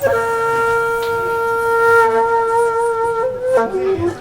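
A wind instrument playing music, holding one long steady note that bends up slightly after about three seconds, then dropping to a couple of short lower notes near the end.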